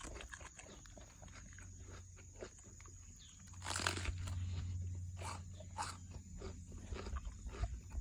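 Shiba Inu chewing raw cabbage: a run of wet, crisp crunches and bites, with a louder crunching stretch about halfway through.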